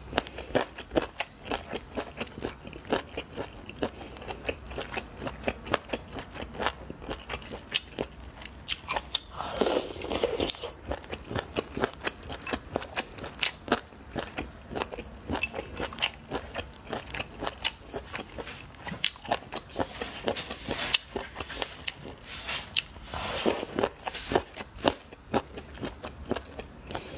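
Close-miked eating of chicken feet in chilli sauce: a steady run of chewing and biting, with crunching and sharp wet clicks as the skin and cartilage are chewed. There are longer, noisier stretches about ten seconds in and again about twenty seconds in.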